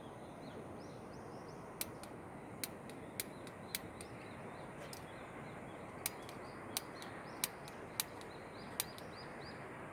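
Camp cooking crackling: a steady faint hiss with sharp, irregular pops about once or twice a second, and faint bird chirps high above.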